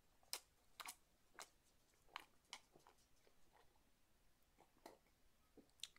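Quiet gulps of a man drinking makgeolli straight down from a bowl: a run of short swallowing clicks, irregular, about two a second.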